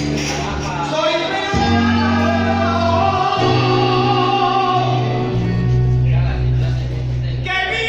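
A man singing a song live with guitar accompaniment, holding long notes over the guitars' bass.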